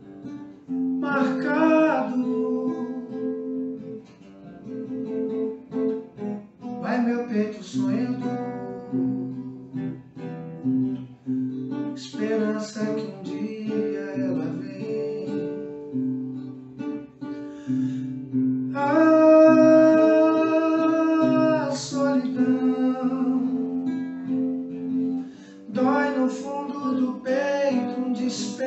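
A man singing a song to his own acoustic guitar accompaniment, strumming chords under sung phrases. About two-thirds of the way through he holds one long note for a few seconds.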